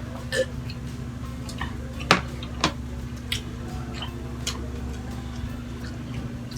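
Scattered clicks and taps of a spoon and fork on a plate while eating, the loudest about two seconds in, over a steady low hum.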